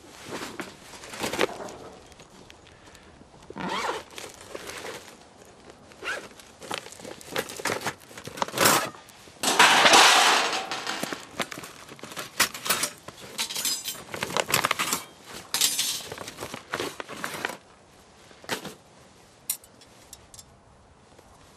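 Metal camp fire-stand parts being handled and set up on a stainless-steel tray: irregular clinks, knocks and scrapes, with a longer scraping rattle about ten seconds in as a scorched sheet is laid over the tray, and a few ringing metal clinks shortly after.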